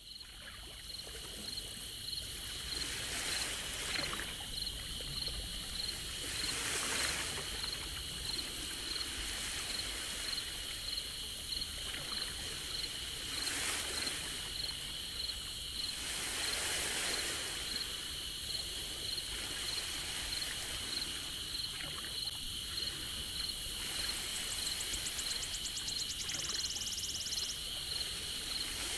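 Crickets chirring in a steady outdoor chorus, an even high pulsing trill that fades in at the start. Swells of soft hissing noise come and go every few seconds, and a second, faster and higher insect trill sounds briefly near the end.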